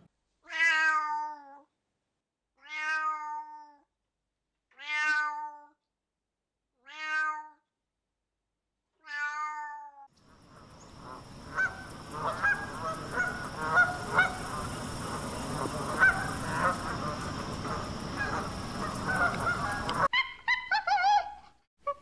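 A red fox giving five drawn-out, falling whining calls, about two seconds apart. Then a crowd of swans and other waterbirds honking and calling over a steady high whine, and a chimpanzee calling briefly near the end.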